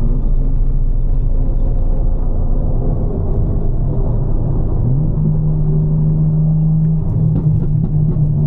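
Tuned BMW M4's S58 twin-turbo inline-six engine running under way, with a steady low drone. A little before halfway the engine note rises quickly, holds for about two seconds, then drops back.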